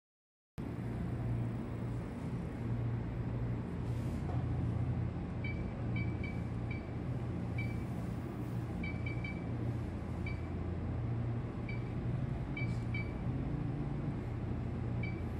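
Steady low hum with a haze of background noise. From about five seconds in, short high chirps come at irregular intervals, some in quick pairs.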